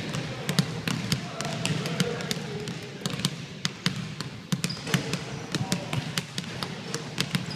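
Basketballs being dribbled hard on a hardwood gym floor, two balls at once, in a quick, uneven run of bounces.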